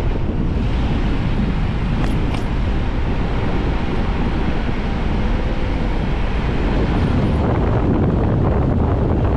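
Wind rushing over a microphone held out of the side window of a car moving at road speed, over the steady noise of the car and the road.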